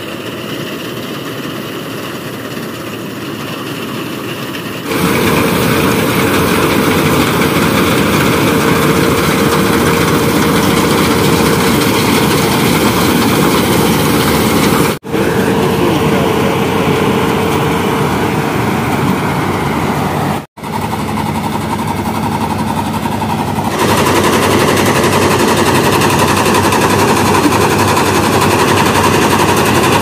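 New Holland TC5.30 combine harvester running at close range while harvesting paddy: steady engine and threshing noise, with a faint held hum through part of it. It gets louder about five seconds in and again near the end, and breaks off briefly twice.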